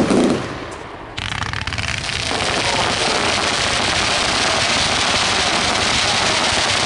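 Fireworks display: a loud bang, then from about a second in a dense, continuous crackling of many small firework bursts that keeps going.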